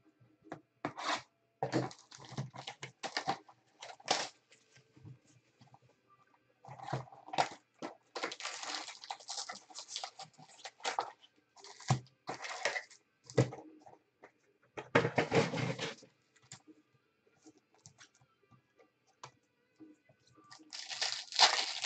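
Rustling and crinkling of a 2015 Panini Prizm baseball card box being opened and its wrapped packs pulled out and stacked on the table, in a run of irregular bursts, busiest about a third of the way in and again past the middle.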